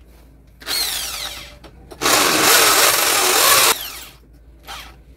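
Electric drill boring a mounting hole into a wall. A short run winds down with a falling whine, then a longer, louder run of a little under two seconds stops abruptly.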